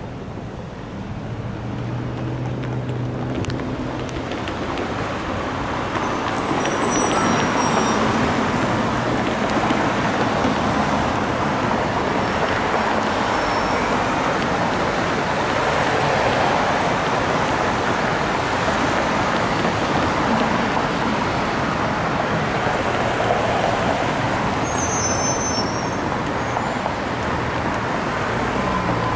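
Road traffic: cars and trucks driving past on a multi-lane road. The tyre and engine noise grows louder over the first several seconds and then stays steady, with a low engine hum near the start.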